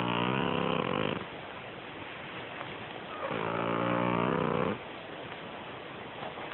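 A sleeping cat snoring: two drawn-out snores, each about a second and a half long, a couple of seconds apart.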